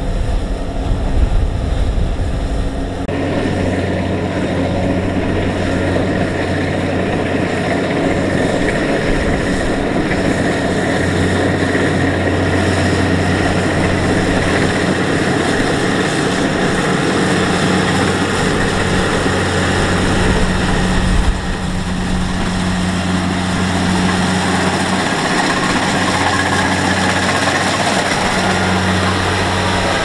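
Kubota DC-70 Plus combine harvester running steadily as it works through standing rice: a steady diesel engine drone with a low hum, shifting briefly about 3 and 21 seconds in.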